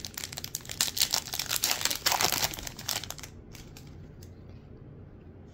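Foil wrapper of a Panini Select football card pack being torn open and crinkled by hand: a dense, rapid crackle that dies down after about three seconds, leaving only faint rustles.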